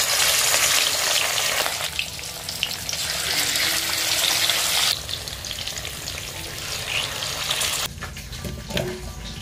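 Rohu fish steaks sizzling as they fry in hot mustard oil in a kadhai, turned with a spoon. The sizzle is loudest for the first five seconds, drops a little, then cuts off suddenly near the end.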